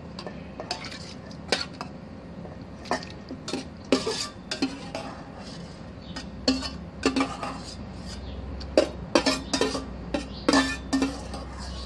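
A metal spoon clinking and scraping against a metal pot as food is scooped out into a stainless steel mixing bowl, in irregular knocks throughout.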